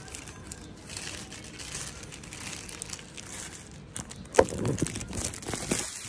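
Clear plastic wrapping crinkling and rustling as a YouTube Silver Play Button plaque is handled and lifted out of its box, with a single sharp knock about four and a half seconds in.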